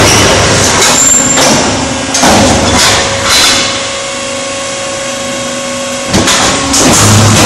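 Concrete block making machine running through its cycle: a series of sharp metallic clanks and knocks in the first half, then a quieter stretch with a steady hum from its hydraulic unit. A loud, deep steady drone starts again near the end.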